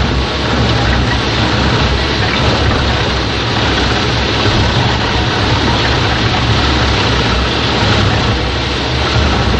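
Mus-Max Terminator 10 wood chipper running steadily and loudly, a low drone under a dense rushing noise.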